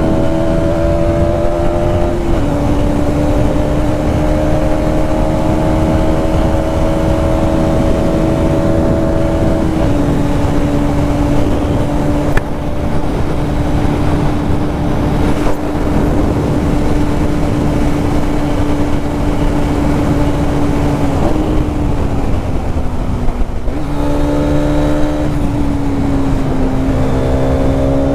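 Hero Xtreme 250R's single-cylinder engine running under way at a nearly steady pitch, with a few small drops in revs and a deeper dip and rise again near the end, over heavy road and wind noise.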